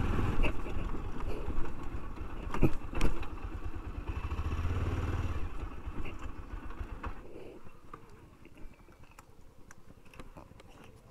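A 220 cc motorcycle's engine running at low speed over rough dirt, with a few sharp knocks in the first three seconds. The engine sound dies down about seven seconds in and stays low to the end.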